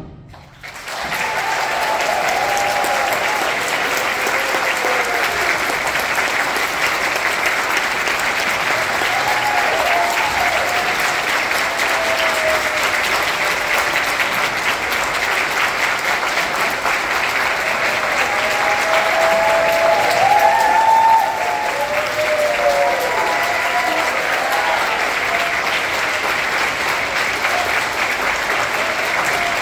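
Concert audience applauding, starting about a second in after a brief hush and going on steadily. Cheering voices rise over the clapping now and then, most of all a little past the middle.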